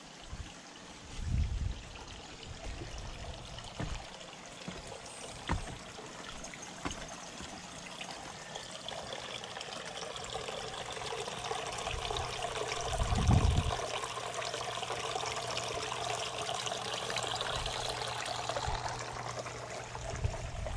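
Water trickling and splashing down the tiers of a small stone garden fountain, growing louder about halfway through, with a few low thumps.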